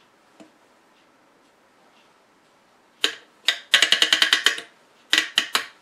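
Rotary range selector switch of a Heathkit MM-1 meter clicking through its detents as the knob is turned. There are a couple of single clicks about three seconds in, then a quick even run of about ten clicks, then a few more near the end.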